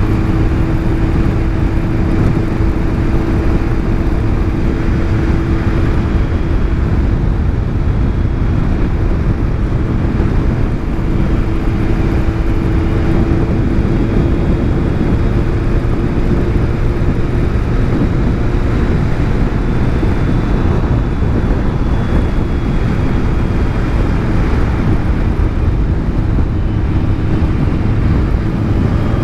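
Motorcycle under way at a fairly even speed: a steady engine hum under heavy wind rush.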